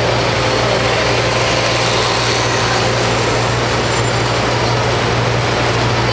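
Model freight train running past on layout track: a steady rolling rush of small wheels and motor over a constant low hum.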